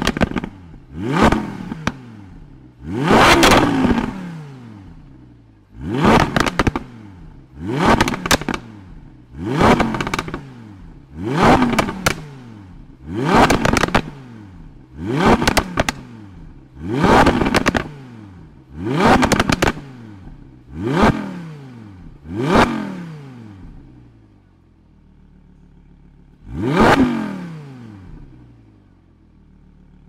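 Audi R8 engine being free-revved in short throttle blips, about a dozen times roughly every two seconds. Each blip rises sharply and then falls back in pitch toward idle, with a longer pause before the last one near the end.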